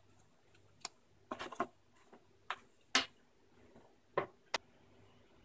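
A handful of short clicks and knocks as a cardboard box, paper manual and small items are handled and set down on a wooden tabletop, the sharpest about three seconds in.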